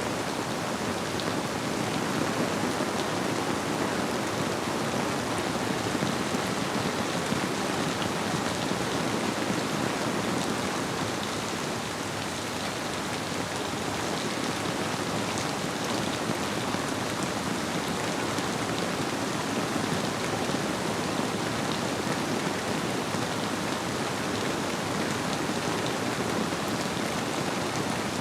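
Steady rainfall: a dense, even hiss with small scattered drop ticks, blended with the flow of a river.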